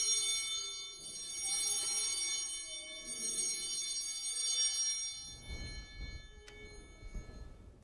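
Altar bells ringing in a few shaken peals for the elevation of the host at the consecration, fading out after about five seconds. A single small knock near the end.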